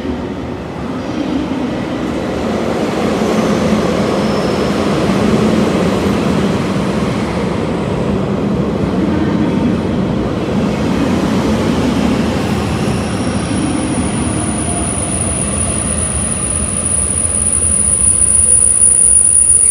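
JR Hokkaido 789 series 1000 subseries electric multiple unit rolling slowly along the platform, with a steady rumble of wheels and running gear. About two thirds of the way in a thin, high, steady tone joins it, and the rumble grows louder near the end.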